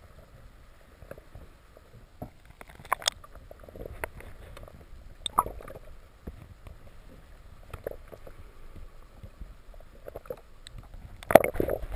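Water heard underwater through a camera's waterproof housing beside a boat hull: a low, uneven gurgling rumble with scattered sharp clicks and knocks, and a louder burst of knocking and sloshing near the end.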